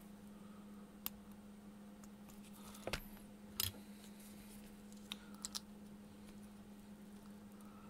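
A few sharp clicks of hand tools at work on a perfboard, with flush cutters snipping component leads. The loudest two come near the middle, and smaller ones follow, over a steady low hum.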